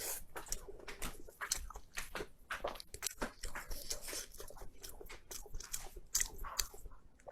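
Close-miked eating: a person biting into and chewing crunchy food, a quick irregular run of crisp crunches.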